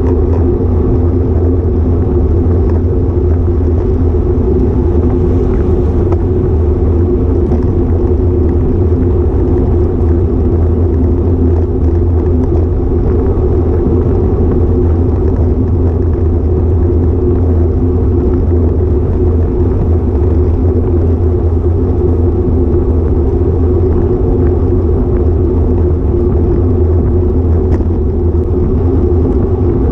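Steady, loud wind rumble on a GoPro Hero5 Session's microphone riding on a road bike at speed, with no break.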